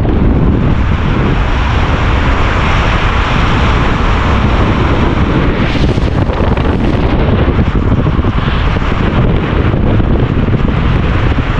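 Loud, steady rush and rumble of wind on the camera microphone from a car driving at speed.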